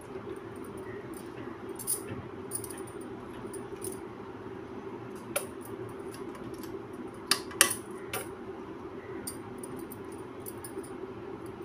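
A few sharp clinks of the glass and metal bangles on a wrist working fabric at a sewing machine, with a quick pair of clinks about two-thirds of the way through. Under them runs a steady low hum.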